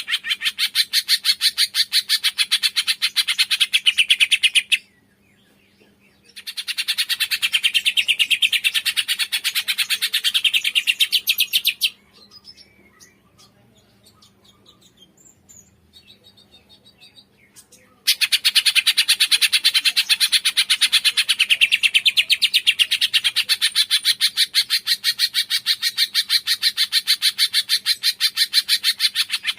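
Cungkok bird singing a fast, continuous high chattering trill of rapidly repeated notes. The trill breaks off briefly about five seconds in, and again for about six seconds in the middle, when only faint scattered chirps remain.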